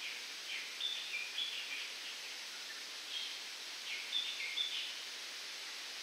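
Wind rustling through coconut palm fronds as a steady hiss, with a bird calling in two short runs of high notes, starting about half a second in and again about four seconds in.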